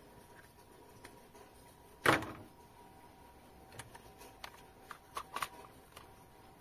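A sharp plastic snap about two seconds in, then a run of lighter clicks and taps, as a smartphone is fitted into the drone remote controller's spring-loaded phone holder.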